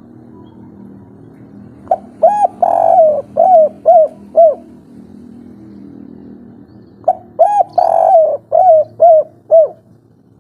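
Spotted dove (tekukur) of the 'kuk 3' song type cooing: two phrases of about six rounded coo notes each, some five seconds apart.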